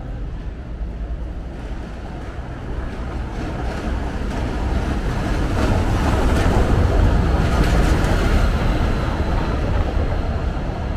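Iveco box truck driving past on a cobbled street, its engine and road noise growing louder over the first half, loudest a little past the middle, then fading.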